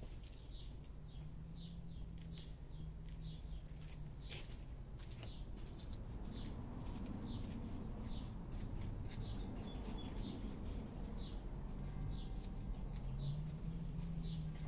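A small bird chirping over and over, about two short falling chirps a second, with a low steady hum underneath.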